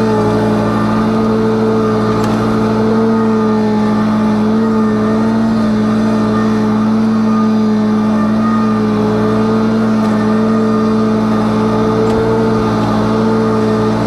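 An engine running steadily at a constant speed: an even, unbroken drone whose pitch wavers slightly.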